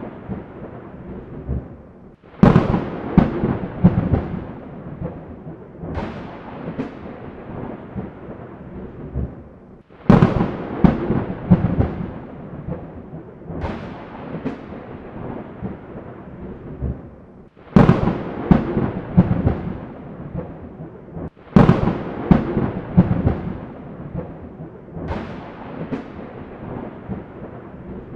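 Thunderstorm: rolls of thunder that break suddenly and die away over a few seconds, coming again and again, with a steady hiss of rain between them.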